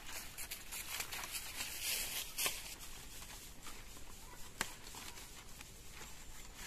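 Leaves rustling and thin branches shaking as green leaves are plucked by hand from a sapling, with a few sharp snaps as stalks break off.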